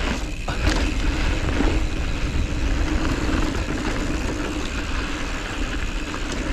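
Mountain bike descending fast on a dirt trail: a steady rush of wind on the helmet-camera microphone over tyre and drivetrain noise, with a couple of small knocks from the bike about a second in.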